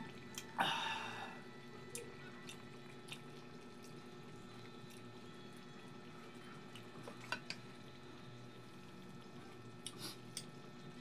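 Close-up eating sounds: a short wet slurp about half a second in, then scattered small clicks and smacks of chewing and of a spoon against a plate.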